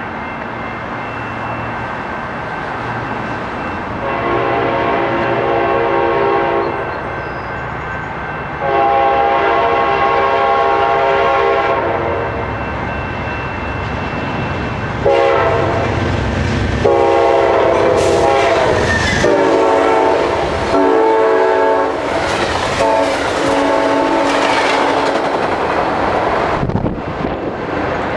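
Amtrak train 572's air horn sounding a series of blasts as it approaches and runs through the station: two long blasts about four seconds apart, then a quicker run of long and short blasts. Beneath them are the rising rumble of the locomotive and the clatter of the train passing.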